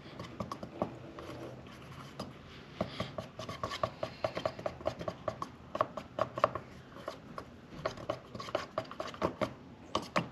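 A stir stick working through a small metal can of G2 brake caliper paint, scraping and clicking against the can's inside with quick, irregular taps, a few each second.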